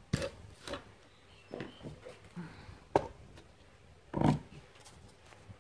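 Handling knocks as a banana-leaf krathong and a pedestal tray (phan) are moved and set down on a wooden table: a few scattered taps, a sharp click about three seconds in, and a louder thump just after four seconds.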